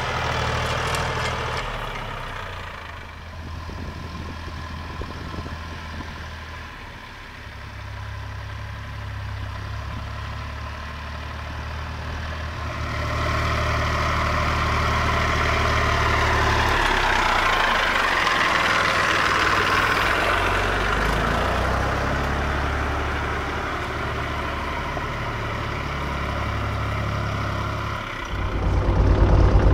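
1967 IHC 423 tractor's diesel engine running as the tractor drives past. It swells louder for several seconds midway as it comes up close, then jumps louder and closer near the end.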